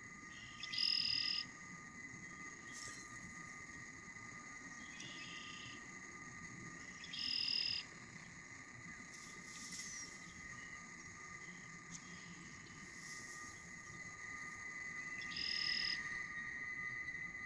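Sustained electronic drone of two steady high tones from a battery-powered instrument improvisation, broken three times by a short, loud, buzzy high burst about six to eight seconds apart.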